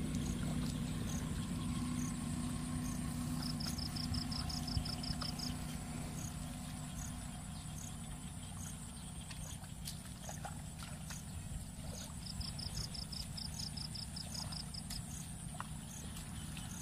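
Insects calling in a wet field: a steady high drone, a high tick a little more often than once a second, and two short rapid trills, one a few seconds in and one near the end. Under them a low steady hum that fades after several seconds.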